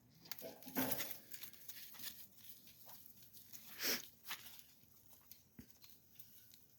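Faint, irregular rustling and crunching, with louder scuffs about a second in and near four seconds in.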